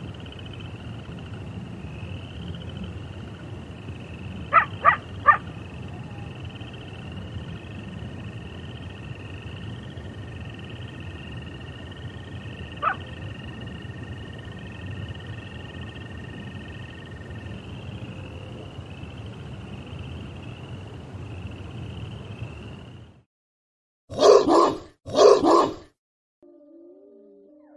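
Wolves yipping and barking: three quick yips about four seconds in and a single one later, over a steady outdoor background with a repeating high chirp. After a brief silence come two loud barks, and several wolves start howling together near the end.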